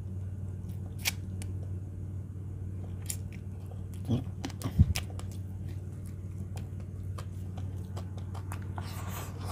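A person chewing a mouthful of fried fish and rice with the mouth open, with wet smacks and clicks scattered throughout over a steady low room hum. There is one louder low sound about halfway through.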